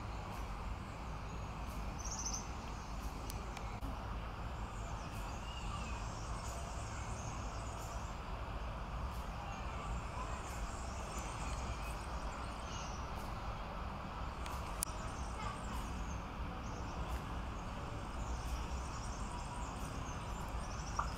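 Steady outdoor background noise with a low rumble, and faint bird chirps scattered throughout.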